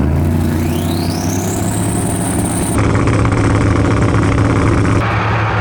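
Race car engines running, with a high whine rising over about two seconds near the start, then levelling off. The sound changes abruptly about three seconds in and again about five seconds in.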